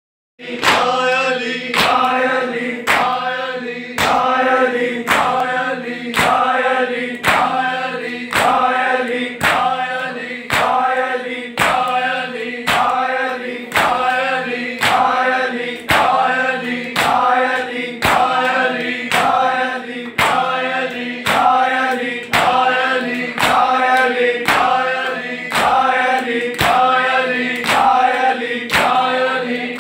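Shia matam: a group of men beating their chests in unison, one sharp slap about every second, under a noha chanted by a group of male voices.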